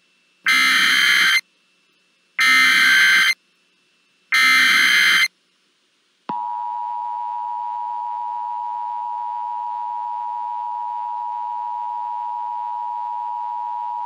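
Emergency Alert System alert opening: three short, harsh data bursts of the SAME header, each about a second long. About six seconds in, the steady two-tone EAS attention signal begins and holds without a break.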